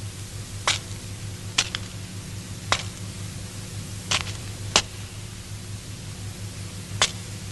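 Steady low hum and hiss of an old film soundtrack, broken by six short, sharp clicks or taps at uneven intervals.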